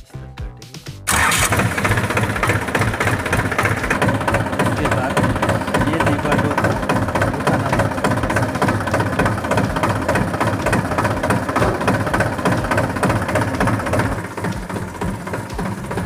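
Diesel tractor engine starting about a second in, then running steadily with an even firing pulse; it drops a little in level near the end.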